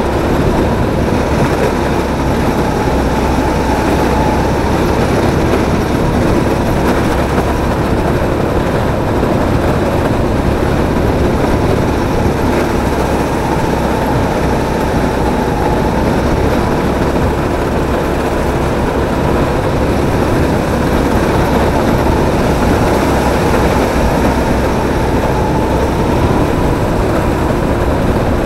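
Drift kart running at speed, heard from a camera mounted on the kart: a steady, unbroken noise with a faint whine over it.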